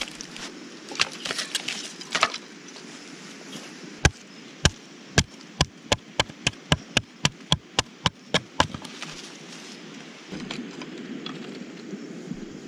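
A run of about fifteen sharp chopping blows on wood, at first about two a second and then quickening to about four a second, stopping about two-thirds of the way through. Light rustling comes before and after the blows.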